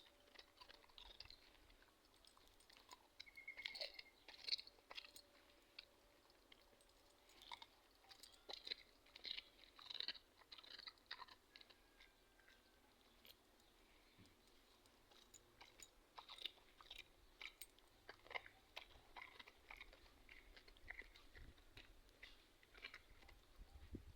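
A dog chewing a cucumber: faint, irregular bursts of crunching with short pauses between bites.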